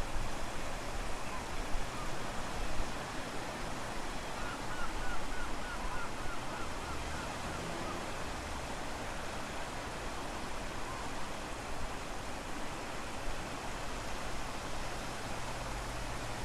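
Strong wind and ocean surf at low tide, a steady rushing noise with rumbling gusts buffeting the microphone. About four seconds in, a quick run of about nine short high chirps sounds over it.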